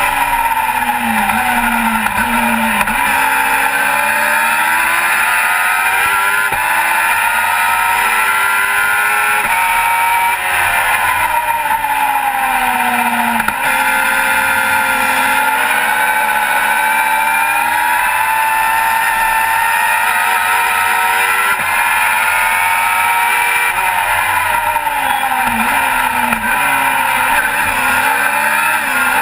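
Formula Vee race car's Volkswagen-based air-cooled flat-four engine heard from the cockpit at racing speed, its pitch climbing as it revs out and dropping back on downshifts a few seconds in, around the middle and near the end, over a steady rushing hiss.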